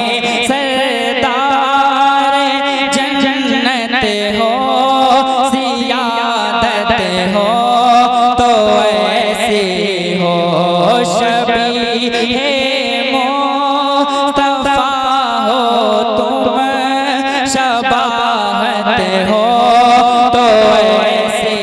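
Naat singing: a solo voice drawing out long, wavering, ornamented melodic phrases over a steady low humming drone.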